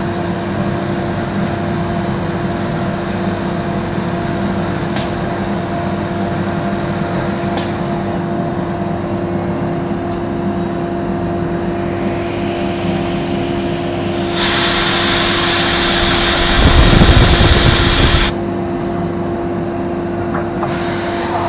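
Biesse Rover A CNC machining centre running, a steady machine hum with a constant tone. About 14 seconds in a loud hiss starts suddenly, joined by a heavy low rumble near its end, and cuts off about four seconds later.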